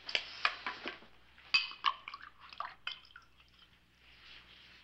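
Clinks and knocks of a whiskey bottle and glass being handled as a drink is poured, one ringing glass clink about a second and a half in; quieter for the last second or two.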